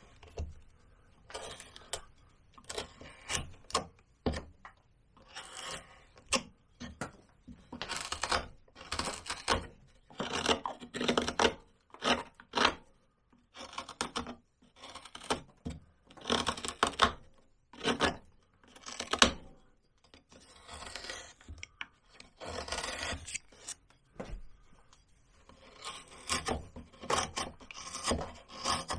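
Hand carving gouge cutting into cottonwood bark: a series of short scraping, shaving strokes, irregularly spaced with brief pauses between them.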